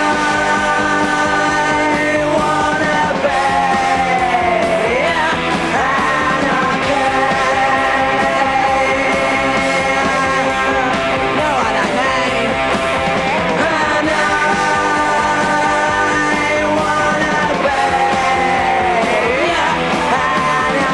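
Rock song with a singing voice playing steadily as background music, with falling sliding notes twice.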